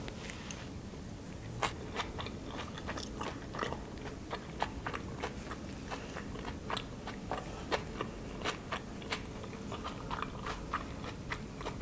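Chewing a mouthful of japchae, glass noodles with vegetables: irregular soft crunches and mouth clicks, a few a second.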